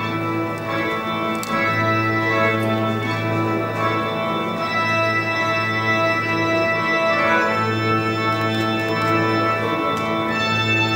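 Mixed choir singing slow, sustained chords, the low voices holding long notes of a few seconds each beneath the higher parts.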